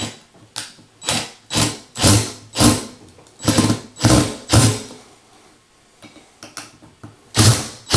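Screws being driven to fasten a ceiling fan's metal mounting bracket to the ceiling box: a run of short, regular bursts about two a second, a pause, then a few more near the end.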